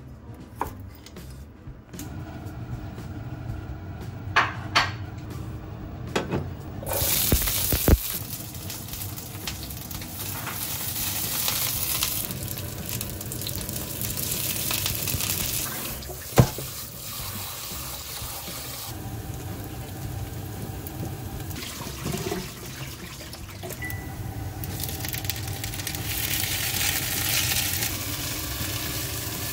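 A few sharp knocks and clinks, then food begins sizzling in a hot pan about seven seconds in and keeps sizzling, swelling and easing by turns.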